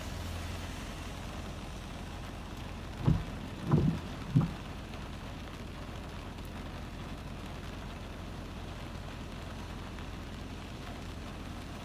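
Rain falling on a stopped car, heard from inside the cabin, over a low steady rumble. Three dull thumps about three seconds in, roughly half a second apart, are the loudest sounds.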